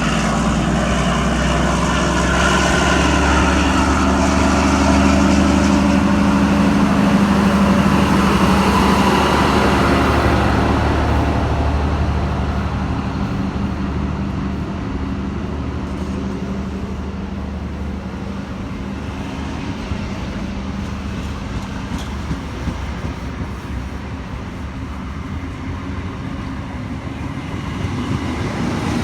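Train at the platform with its engine running, a steady low drone that is loud for about the first ten seconds and then fades as it draws away.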